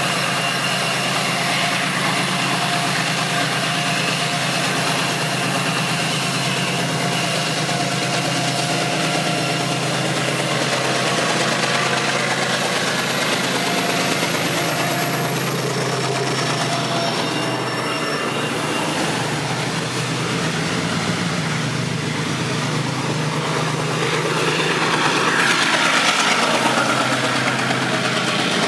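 Diesel-electric freight locomotive running under load with its wagons rolling along the track, a steady engine sound that grows louder near the end as the locomotive comes closer.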